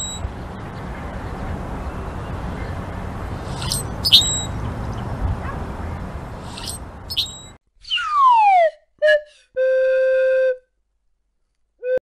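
Steady rushing outdoor background noise, broken three times by pairs of short, high squeaky calls from a male Brewer's blackbird. After a sudden cut come cartoon sound effects: a falling slide-whistle glide, a short blip and a held whistle-like tone lasting about a second.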